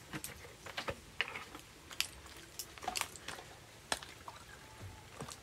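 Irregular light clicks and taps, about two a second, from cooking work at a wok on an outdoor stove.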